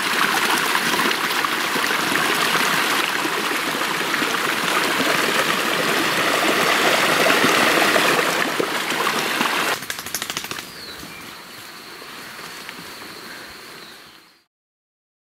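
Steady rush of flowing stream water. About ten seconds in it drops suddenly to a quieter hiss with a faint high steady tone, then fades out.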